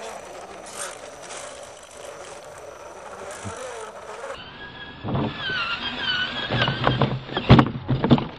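Scale RC crawler's electric motor and drivetrain whining softly as the truck crawls over rocks, the pitch wavering with load. About four seconds in this gives way to a louder, higher RC truck motor whine and a series of clattering knocks as a truck tumbles over, the loudest knock near the end.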